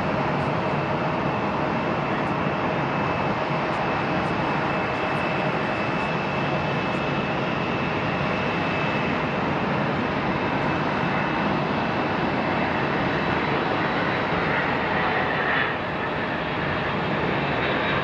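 McDonnell Douglas MD-11 freighter's three jet engines on landing approach and flare: steady jet noise with a thin high whine, a little quieter in the last couple of seconds.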